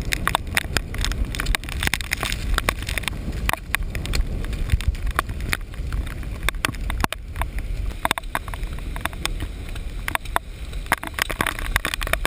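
Muffled rumble of a handheld GoPro's waterproof case being jostled and buffeted, with many irregular knocks and taps against the housing.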